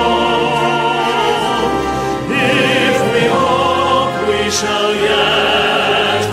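Slow sacred choral song with orchestral accompaniment, long notes held with vibrato.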